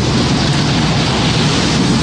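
Tornado sound effect: a loud, steady rush of storm wind and rain over a deep, continuous low rumble.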